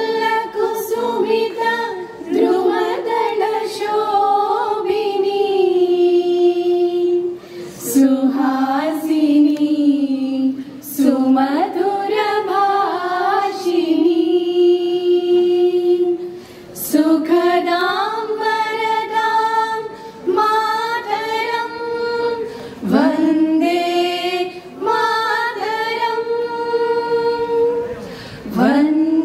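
A small group of women singing together into microphones, unaccompanied, in long held phrases with short breaks for breath between them.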